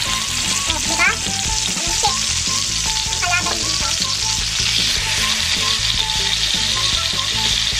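Marinated chicken leg quarters frying in hot oil in a wok: a steady, dense sizzle.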